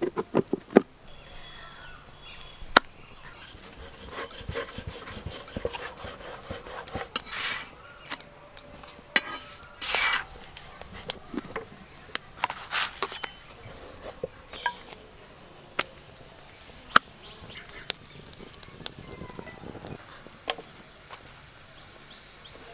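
Scattered clinks, taps and scrapes of cooking utensils: a metal spatula against an iron griddle and the lid of a plastic casserole being handled.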